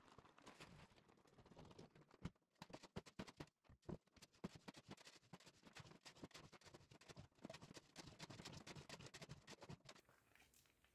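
Faint, irregular clicks and scrapes, several a second, of hand tools working loose dirt.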